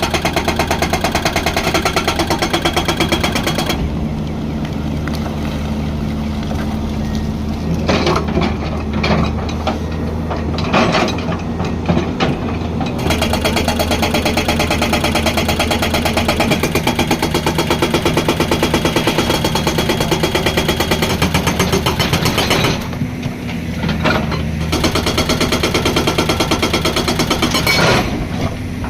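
Hydraulic rock breaker on a Hyundai 215 excavator hammering hard stone in rapid, even blows. It works in runs of several seconds broken by pauses with a few single knocks, over the excavator's diesel engine running steadily.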